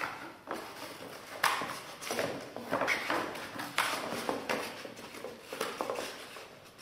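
Scissors cutting through a moulded paper-pulp egg box: irregular sharp snips mixed with the rustle and scrape of the cardboard being handled.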